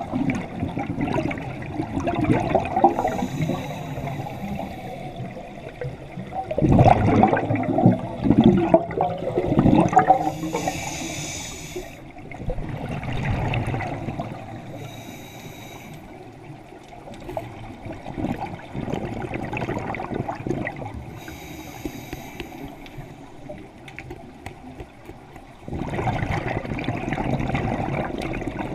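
Scuba diving underwater: breathing through a regulator, with a short hiss on each breath every several seconds and bubbling, rumbling bursts of exhaled air, loudest about seven to ten seconds in.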